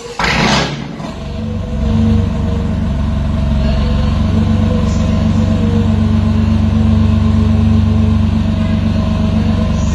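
BMW M4's S55 twin-turbo straight-six, breathing through an ARMYTRIX valved exhaust, starts with a short loud burst and settles into a steady deep idle. The idle grows louder about two seconds in and then holds.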